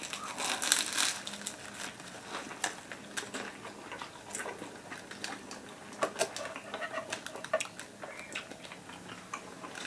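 Eating sounds: a shawarma in crisp, over-toasted lavash being bitten and chewed, with irregular crunches and small clicks throughout.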